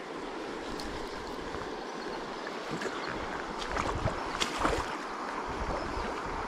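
Shallow river running over a gravel riffle, a steady rushing of water, with wind rumbling on the microphone. A few short crackles come about four to five seconds in.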